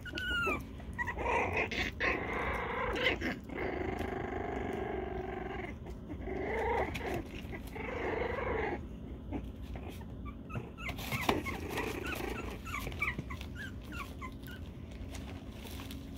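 Young puppies play-growling: high, trilling little growls that run on for several seconds, with a short whine at the start and short yips later.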